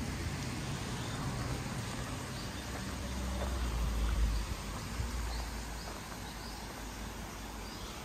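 Steady rush of river water with wind on the microphone, the low rumble swelling about four seconds in, and a few faint bird chirps over it.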